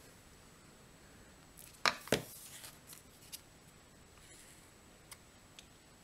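Two sharp clicks a quarter second apart about two seconds in, then a few faint ticks, from craft supplies being handled on a work table; otherwise quiet room tone.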